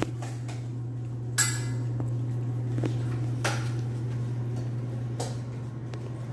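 A utensil clinking and scraping against a stainless bowl while dog food is mixed: a few sharp clinks, the loudest about a second and a half in, over a steady low hum.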